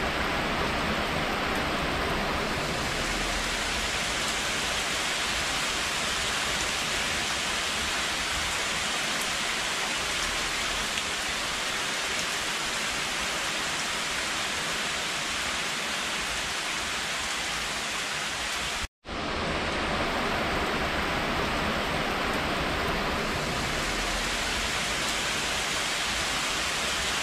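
Heavy rain pouring down steadily, a dense even hiss. It cuts out for a moment about nineteen seconds in, then starts again just as before.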